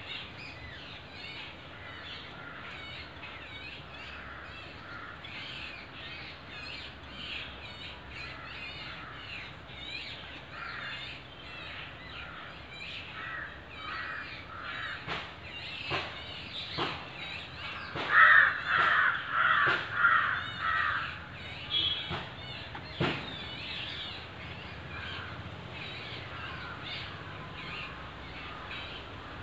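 Birds calling over and over, with a louder run of about five calls a little past halfway, and a few sharp clicks in the middle stretch.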